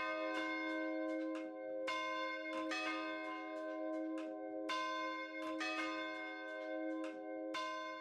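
Church bells ringing: a string of struck notes at uneven intervals, each tone ringing on and overlapping the next.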